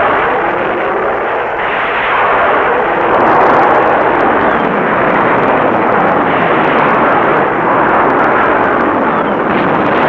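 Rocket motor of a ship-launched surface-to-air missile, a loud, steady rushing noise as the missile climbs away after launch.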